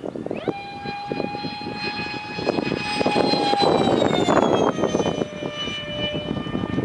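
Super Sniper 90mm electric ducted-fan RC jet flying, its fan giving a high whine with several overtones. The whine comes in sharply about half a second in, grows louder, then drops slightly in pitch about four to five seconds in.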